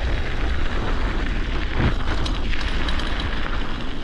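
Wind buffeting the microphone over the rumble of a mountain bike rolling fast down a snowy trail, with a thump and a few rattling clicks from the bike about two seconds in.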